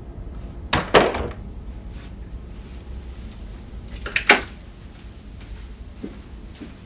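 Two sharp double knocks about three seconds apart, over a steady low hum.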